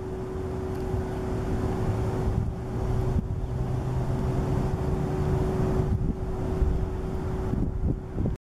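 Wind buffeting the microphone over a low rumble, with a single steady humming tone that stops near the end.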